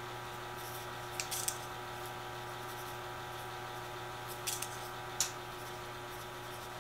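A steady background hum, with a few soft, brief ticks and rustles from sprinkles being spooned from a bowl onto a pie on a ceramic plate: once about a second in and twice more near the five-second mark.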